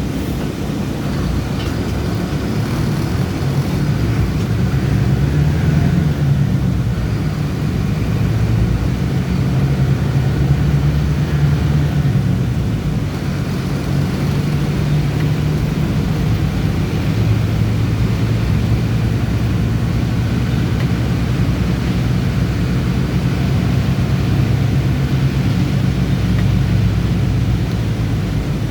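Bus engine running while the bus is driven, a steady low drone whose pitch rises and falls with engine speed.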